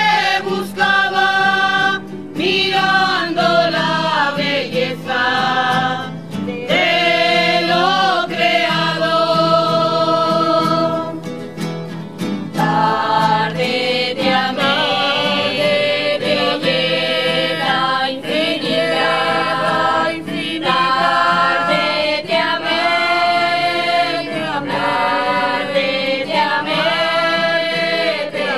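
A crowd of people singing a religious hymn together outdoors, line by line with short breaks between phrases, accompanied by acoustic guitar.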